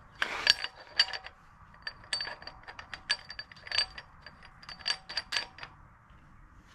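Irregular metal clicks and clinks, some with a short high ring, as an aluminium camshaft alignment tool is worked onto the camshafts of a BMW S63 V8 cylinder head to check the cam timing. The clicking dies away about a second before the end.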